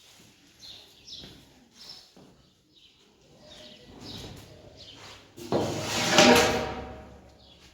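A small bird chirping again and again in short, high, falling notes. About five and a half seconds in, a much louder rough, pitched sound lasts about a second and a half.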